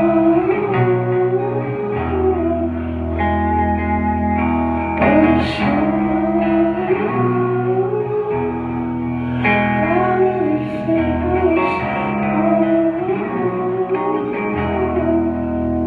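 Live rock band playing loudly: electric guitars, bass and drums in a stretch without sung words, with a wavering melodic line over held chords and a cymbal crash about five and a half seconds in.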